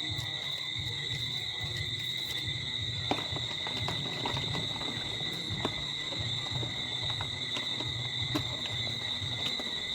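Steady high-pitched chorus of crickets or similar insects, ringing on two even tones, with a low background rumble and a few scattered faint clicks.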